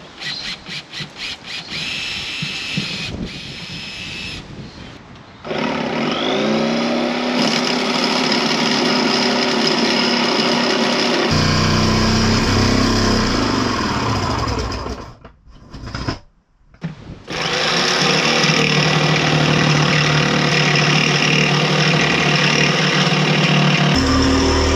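Power tools cutting a window opening in a camper's wall. A drill starts in quick short bursts, then runs in long steady stretches that stop briefly about fifteen seconds in and start again.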